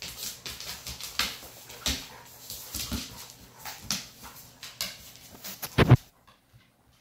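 A Doberman and a tan puppy play-fighting on a hard wood-look floor: dog whines and play noises with many sharp clicks and taps of claws and paws scrabbling. One loud burst comes near the end, then the sound cuts out.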